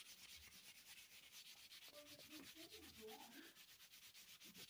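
Near silence: faint, quick, even rubbing strokes of coloring on paper in a coloring book, with a faint distant voice briefly in the middle.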